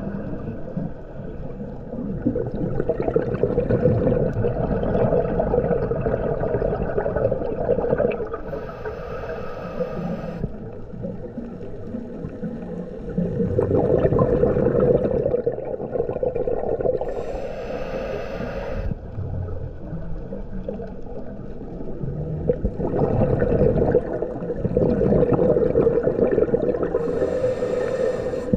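Scuba diver breathing through a regulator underwater, in slow cycles. Three bursts of exhaled bubbles come about nine seconds apart.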